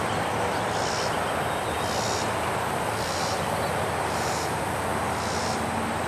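Steady outdoor background hiss with a faint high-pitched chirp repeating about once a second.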